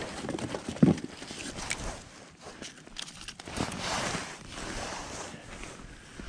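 Rustling of winter clothing and handling noises as a freshly caught perch is unhooked and put into a bucket on the ice, with one sharp thump about a second in.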